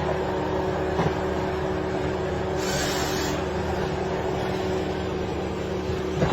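An engine running steadily at a constant speed, with a brief hiss about three seconds in.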